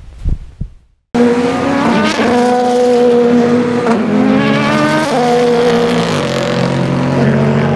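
After a couple of low thumps and a short silence, the engines of sports racing cars at racing speed, loud and steady, their engine notes dropping in steps a few times.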